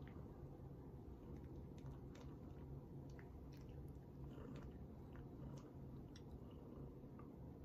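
Near silence: a low steady hum with scattered faint clicks and soft rustles.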